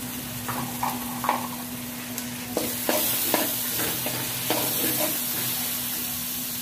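Metal spatula stirring spiced onion-tomato masala in an aluminium karahi: repeated scrapes and clicks of the spatula against the pan over a steady sizzle of the masala frying.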